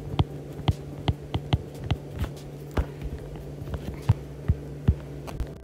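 A stylus tapping and clicking on an iPad's glass screen during handwriting, in irregular light taps a few times a second, over a steady low electrical hum.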